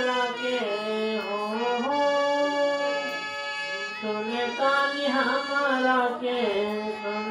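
Men singing a devotional bhajan in a wavering, drawn-out melody over a steady held instrumental drone.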